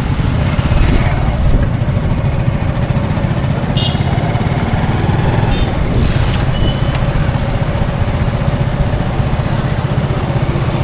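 Busy road traffic: a steady, dense rumble of vehicle engines and tyres passing, with a few brief high-pitched beeps or chirps around the middle.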